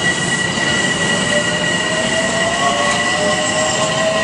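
Bombardier M7A electric multiple-unit train pulling out: the traction motor whine climbs steadily in pitch from about a second in as the train accelerates, over a steady high whine and the rumble of the cars.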